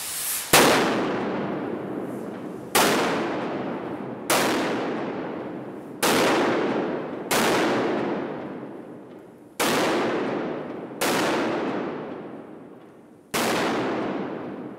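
Pyrostar Super Centipede butterfly mat firing: its pieces go off one after another with loud bangs, eight of them at uneven gaps of one to two seconds, each followed by a long fading echo.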